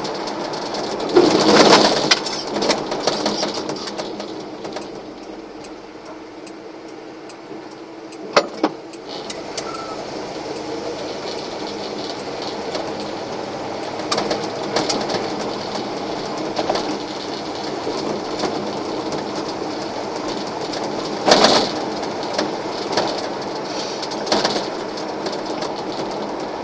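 Cab noise of a 1988 GMC/Chevrolet one-ton pickup with a small-block V8 under way: a steady engine and road drone. A few sharp knocks and rattles come from the loose cab fittings and the stiff ride over bumps.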